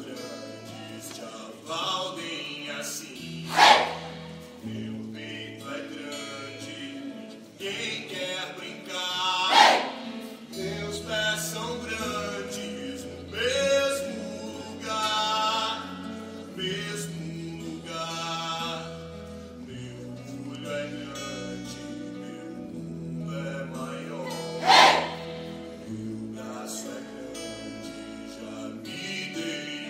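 A group of voices singing a song together with acoustic guitar over steady, sustained bass notes. Three brief, loud shouts cut in over the music.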